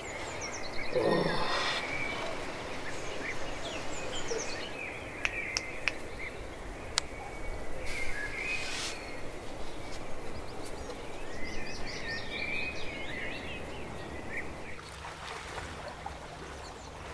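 Outdoor ambience with birds chirping on and off and a few sharp knocks. About a second in there is a short cry that falls in pitch.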